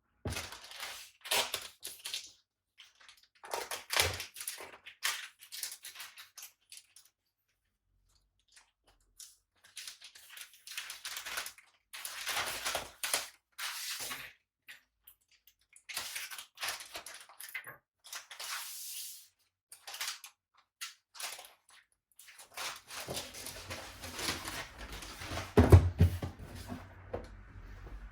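Cardboard packaging being handled and opened: irregular scraping and rustling with clicks and knocks, broken by short pauses, and a sharp thump near the end.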